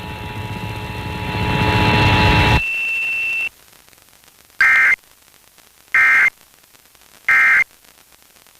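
Emergency Alert System end-of-message data bursts, received over FM radio: three short, identical two-tone digital bursts about a second apart, signalling the end of the alert. Before them come a couple of seconds of radio hiss with a faint steady tone, which cuts out abruptly.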